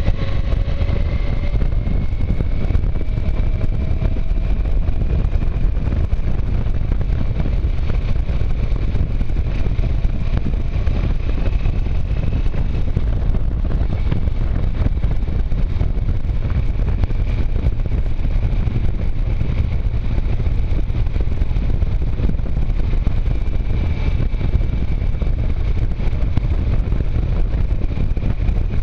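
Motorcycle running at steady road speed, its engine note rising slightly over the first few seconds and then holding, under heavy wind buffeting on the microphone.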